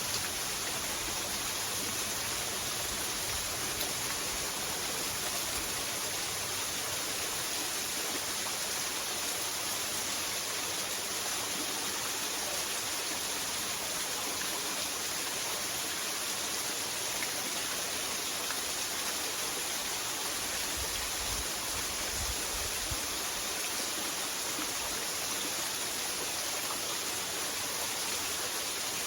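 Steady rushing of falling and running water from a small waterfall, a continuous even hiss.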